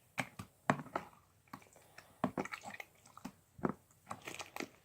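Slime squishing and a plastic bottle crackling as the slime is squeezed and worked out of it, in irregular sharp crackles.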